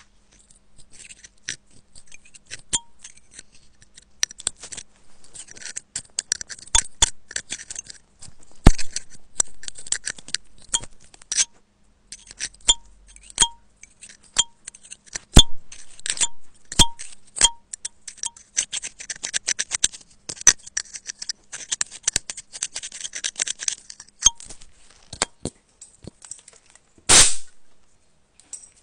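Thin metal pick scraping and ticking inside an iPhone's Lightning charging port as it digs out packed lint: a dense run of sharp ticks and scratchy scraping, with a short, louder burst of noise near the end.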